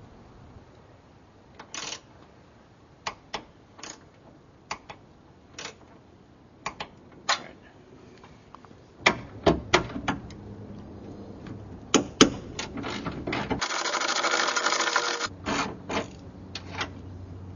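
Socket ratchet wrench clicking on the hood hinge bolts, in scattered single clicks and short quick runs, with other small metal taps and clicks from the hinge hardware. About 14 seconds in there is a denser stretch of noise lasting about a second and a half.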